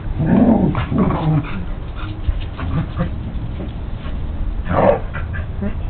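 Two dogs play-fighting, a Welsh Corgi with a West Highland Terrier puppy: short dog vocalisations with a louder short call near the end.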